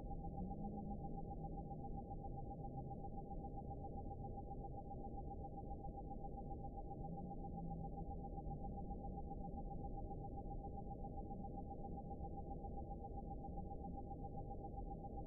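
A steady, high-pitched tone pulsing quickly and evenly over a muffled low rumbling hiss, with faint low wavering tones drifting in and out underneath. The uploader takes it for a cosmic vibration carrying the words 'release karma'.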